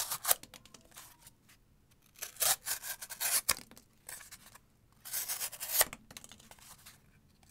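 Kubey Bluff folding knife slicing through corrugated cardboard in several separate cutting strokes with short pauses between them. The sharp edge cuts through easily.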